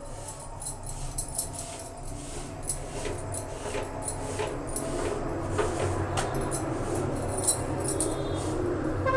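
Glass bangles clinking in quick irregular clicks as a hand presses a roti down on a hot iron tawa with a folded cloth, the cloth rubbing and scuffing on the bread, over a steady low hum.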